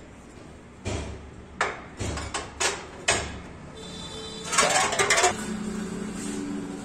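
Metal clanks of a steel bar worked in the holes of a screw jack's head, winding the jack under a tractor: about six sharp knocks in the first three seconds, then a short burst of metallic clatter about five seconds in, followed by a low steady hum.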